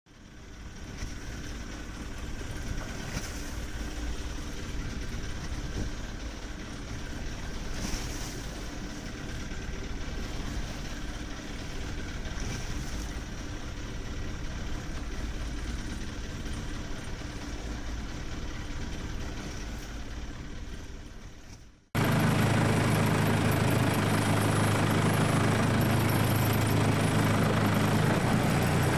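Boat engine running steadily under a hiss of water and wind. About 22 seconds in, a sudden cut brings a louder, deeper engine drone.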